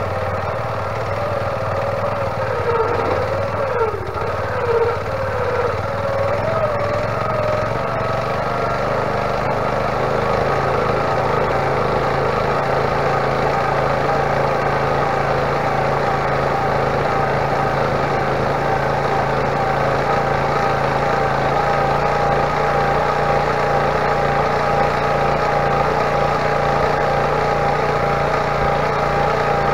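A small engine running steadily. In the first several seconds its pitch wavers up and down, then it settles and holds an even pitch.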